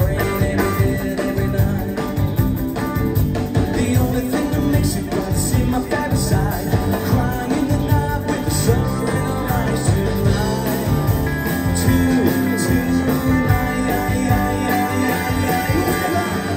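Live pop-rock band playing an upbeat song through a concert PA, with electric guitars and drums, heard from the audience.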